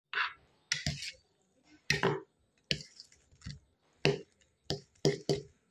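Eating sounds: a steel spoon working through noodles on a steel plate, and the noodles being eaten, in a string of about a dozen short, sharp sounds with brief gaps between.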